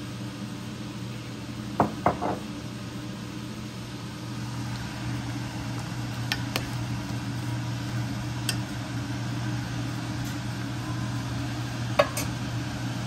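A spoon stirring mung bean stew in a stainless steel pot on the stove, with sharp clinks against the pot: a quick cluster about two seconds in, then single clinks every couple of seconds, the loudest near the end. A steady low hum runs underneath.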